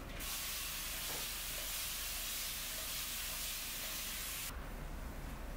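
Spray-bottle mister releasing a continuous fine mist: a steady hiss lasting about four seconds that starts and cuts off abruptly.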